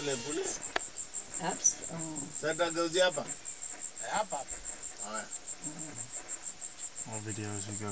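Insects chirping in a steady, high-pitched pulse of about six or seven chirps a second, with low voices heard now and then.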